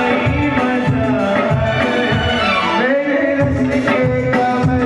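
Live Indian stage-band music: a man singing into a microphone over keyboard and hand drums (congas and tabla), with a steady beat.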